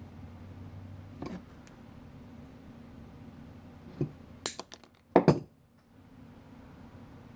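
A few sharp clinks and knocks of small metal tools and wire being handled on a workbench, the loudest pair about five seconds in, over a steady low hum.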